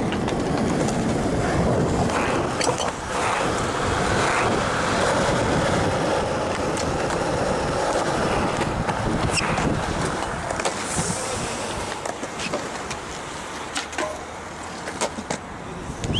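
Skateboard wheels rolling over concrete: a steady, loud rumble with scattered clicks as the wheels cross cracks and joints, easing off a little near the end.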